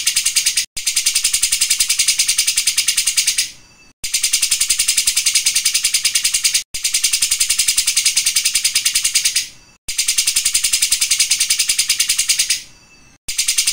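Caged cucak jenggot (grey-cheeked bulbul) singing a high, rapid, evenly pulsed rattling song in phrases of about three seconds, with short breaks between them.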